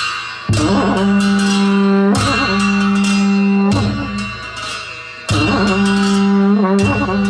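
Instrumental music with plucked strings over a steady low drone, in phrases that change every second or two.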